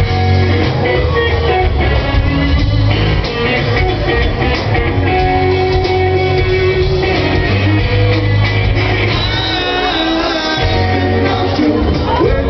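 Live rock band playing: electric guitar, bass and drums with a lead vocal, the guitar bending notes about three-quarters of the way through.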